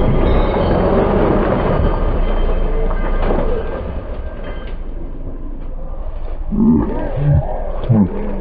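Side-by-side UTV engine revving hard under load on a rocky climb, a dense roar that eases off about four seconds in. Near the end, raised voices come in.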